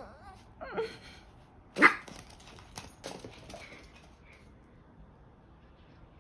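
Maltese puppy giving a few short, high barks, the loudest about two seconds in.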